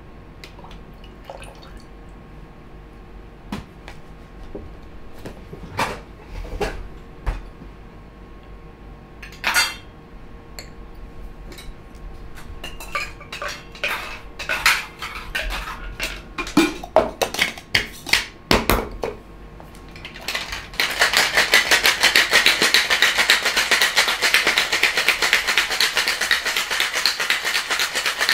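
Scattered clinks and knocks of metal bar tools and ice, then, for the last third, a steady, rapid rattle of ice being shaken hard inside a metal cocktail shaker.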